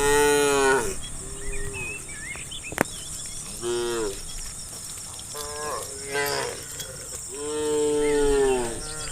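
Cows mooing in turn, about five calls: a loud one at the start, shorter ones in the middle and a long drawn-out one near the end.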